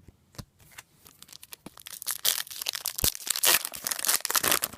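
A foil trading-card pack wrapper being torn open and crinkled: a few light clicks at first, then dense crackling from about two seconds in.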